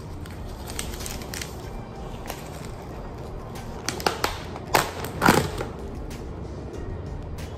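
Thin clear plastic takeaway-container lid being pried off, giving a few sharp crackling snaps about halfway through, over quiet background music.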